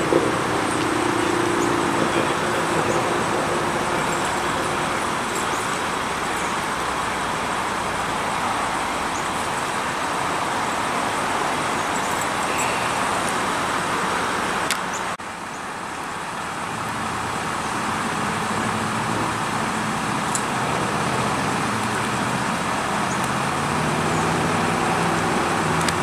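Steady road-vehicle noise: engines running and traffic rumbling, with no distinct single event. The sound drops suddenly about halfway through, then builds back up.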